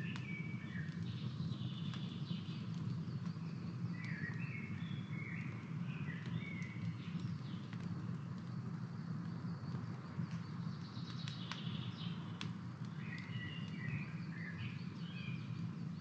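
Wood campfire burning with a steady low rush and sharp crackles and pops, several of them in the middle. Small birds chirp in short quick phrases on and off over it.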